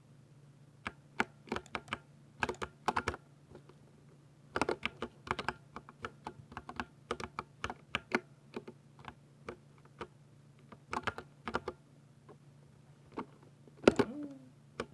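Typing on a 60% RGB keyboard: irregular bursts of keystrokes separated by short pauses, with a louder flurry of keys near the end. A faint steady low hum runs underneath.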